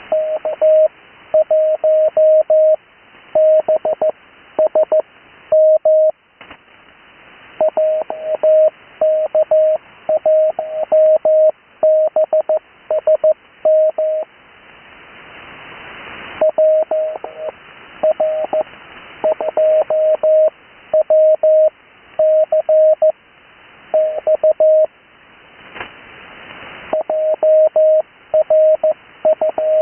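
Morse code (CW) sent as a single steady tone keyed into dots and dashes, in groups with short pauses between them: amateur-radio call signs being sent for copying practice. It is heard through a radio receiver, with band hiss swelling up in each pause.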